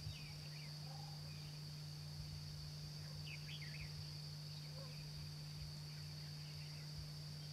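Forest ambience: a steady high-pitched insect drone, with scattered short bird chirps (a small cluster about three seconds in) over a low steady hum.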